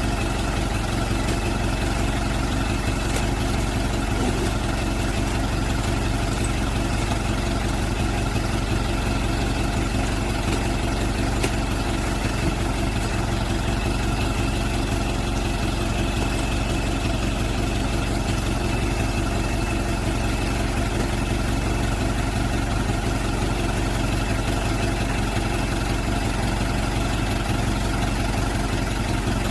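Truck engine running steadily at an even, unchanging speed, with no revving.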